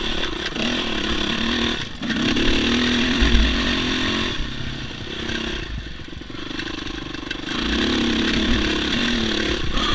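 Yamaha dirt bike engine running on a rough uphill trail, with the throttle opened and eased. It is louder from about two to four seconds in, drops away for a few seconds, then picks up again near the end.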